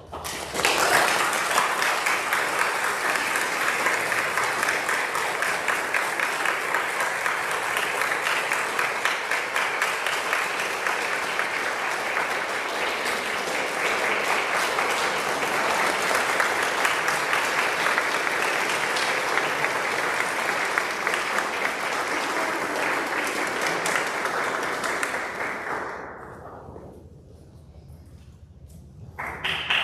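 Audience applauding as the music stops: steady clapping for about 25 seconds that dies away, then a fresh round of applause starting just at the end.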